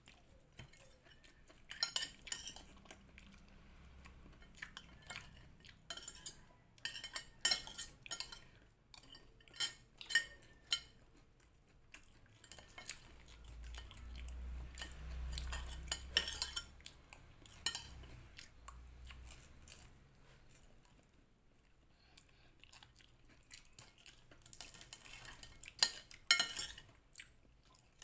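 Metal fork and spoon clinking and scraping against a plate as fish meat is picked off the bones, in irregular short clinks. A low rumble comes in for a few seconds around the middle.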